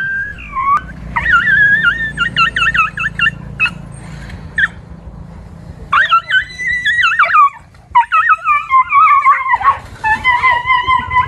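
Dogs yelping and whining in high-pitched, fast-wavering cries, in three runs with short pauses between them.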